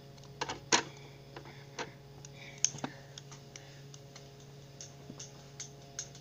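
Plastic Lego bricks clicking and clacking as they are handled and pressed together: a few sharp clicks in the first three seconds, then lighter scattered clicks, over a low steady hum.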